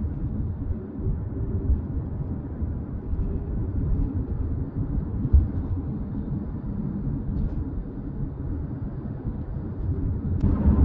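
Inside a moving car: a steady low rumble of road and engine noise. It grows louder, with more hiss, just before the end.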